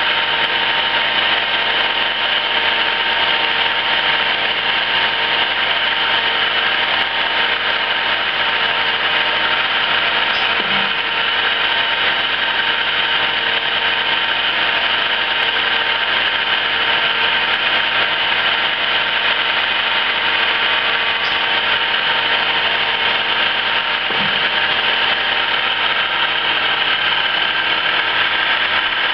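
1974 Emi-Mec E Sprint plugboard automatic lathe running steadily while a tool cuts turned parts from bar stock under coolant, a constant machine hum with several steady tones.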